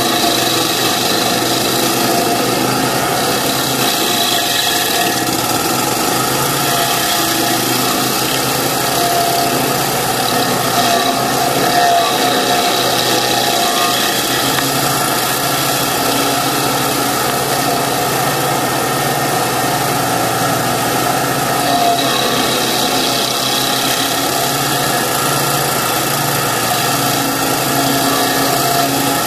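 Kanga mini loader's engine running steadily, powering a stump grinder attachment.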